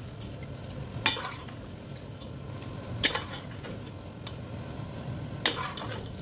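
A slotted metal spatula scrapes and knocks against a metal pot in a few sharp strokes as pieces of mutton are stirred into a tomato sauce. Under the strokes the sauce sizzles steadily as it fries.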